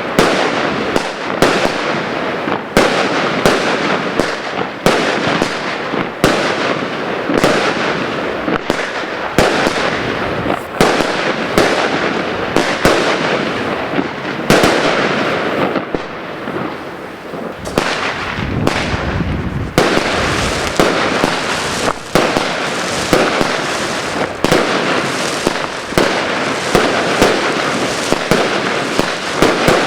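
Consumer fireworks from an Evolution Fireworks assortment going off: a dense run of sharp bangs over continuous crackling. The bangs thin out for a few seconds past the middle, where a lower rushing sound comes up, then pick up again.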